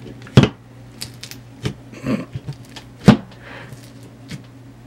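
Fingers poking and squeezing clear floam slime (slime with styrofoam beads) in a jar, giving scattered sticky pops and clicks, the two loudest about half a second in and about three seconds in.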